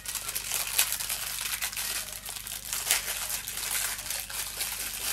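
Clear plastic bag crinkling and rustling as a small metal microphone stand is worked out of it by hand, a continuous run of crackles.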